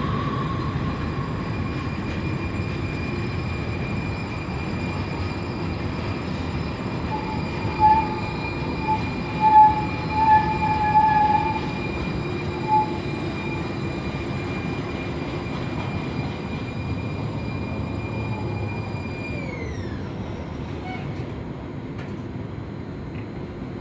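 A train running on rails: a steady rumble with a thin high whine. A few short high squeaks come about a third of the way in. Near the end the whine drops quickly in pitch and fades.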